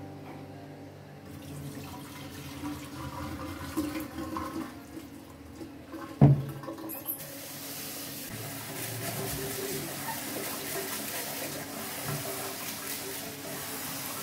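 Rice being rinsed in a bowl in a kitchen sink: the cloudy rinse water is poured off with some splashing, a sharp knock comes about six seconds in, and then a tap starts running into the bowl while the rice is swished by hand.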